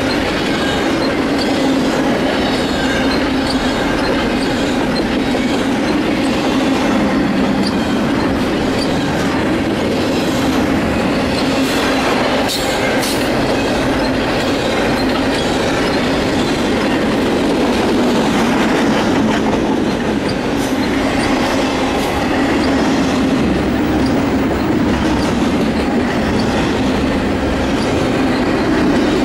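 Double-stack container well cars rolling past at speed: a steady, loud rumble and clatter of steel wheels on rail, with a few sharp knocks about midway and again later.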